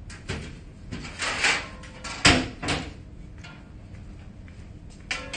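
A handful of knocks and scrapes from metal spoons working cookie dough in a glass mixing bowl and dropping it onto a baking tray. The sharpest, loudest knock comes a little over two seconds in.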